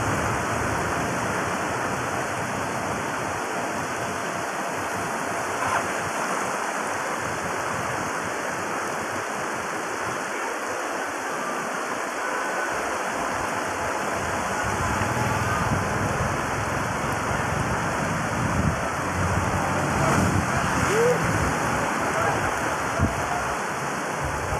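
Heavy rain falling on a flooded street, with floodwater rushing over the road: a steady rush of running water and downpour.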